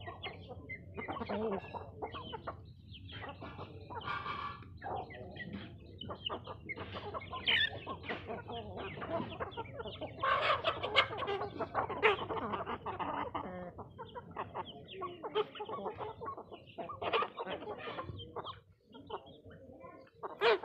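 A flock of chickens clucking as they feed, many short calls overlapping, louder for a few seconds around the middle.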